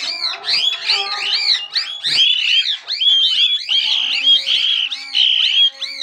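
Small parrots, conures and parakeets, chattering: many quick, high, overlapping chirps, several a second, with a few longer calls in the second half.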